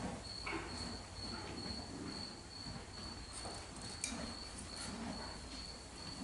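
A cricket trilling steadily on one high note, with soft knocks and rustles from saddle tack being handled on a horse, and a sharp metallic clink about four seconds in.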